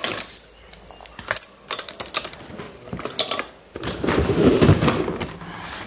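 Small plastic items clicking and clattering as a hand rummages through a clear plastic bag, with the bag rustling; a louder, longer crinkling rustle about four seconds in.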